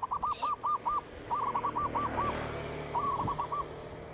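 A bird calling: three quick runs of short hooting notes, about seven a second, each run shorter than the one before.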